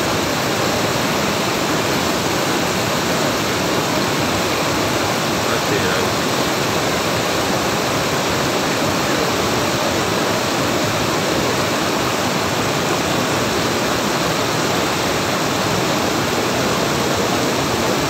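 Fast-flowing floodwater rushing over a road, a steady loud rush of water that does not let up.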